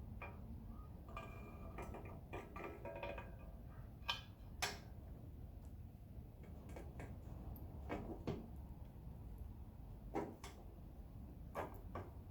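Metal tools and parts being handled during motorcycle assembly: scattered clinks and knocks, with short metallic ringing between about one and three seconds in.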